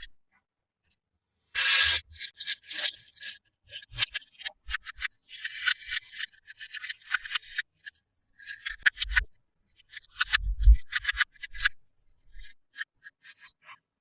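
Plastic toy packaging being handled and opened by hand: irregular crinkling, crackling and scraping, densest in the middle, with a couple of low thumps of handling later on.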